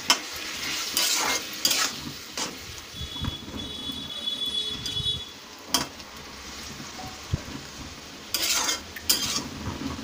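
A metal spatula scraping and clinking against an iron karahi as a watery curry of taro stolons is stirred, with a faint sizzle of the simmering pan underneath. The scrapes come irregularly, a few at a time, with a cluster near the end.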